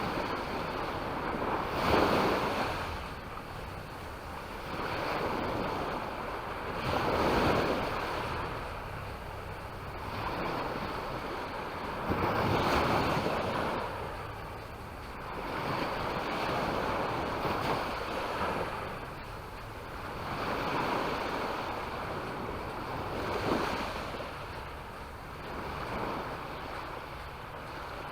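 Sea waves breaking on the shore, a wash of surf that swells and falls back about every four to five seconds.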